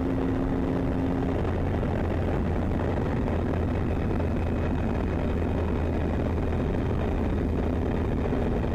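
Motorcycle riding at road speed: a steady engine drone with a low hum, under constant wind and road rush.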